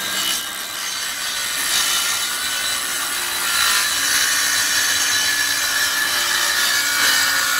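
Electric power saw running steadily while cutting through a wooden panel along a marked line.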